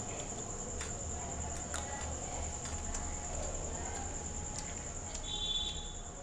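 Cat eating soft halwa from a small steel dish: faint, irregular chewing and licking clicks, over a steady high-pitched whine.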